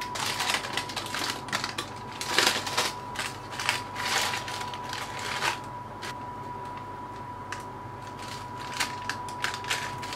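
Baking parchment crinkling and crackling as it is handled and peeled off baked loaves: a dense run of quick crackles for about six seconds, then a few scattered ones near the end.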